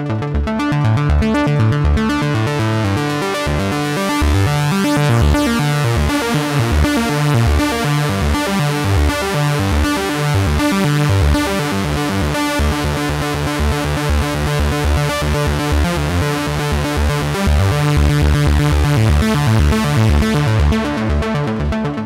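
GForce Oberheim SEM software synthesizer, an emulation of the monophonic analog Oberheim SEM, playing a preset as a fast arpeggiated run of short, low notes.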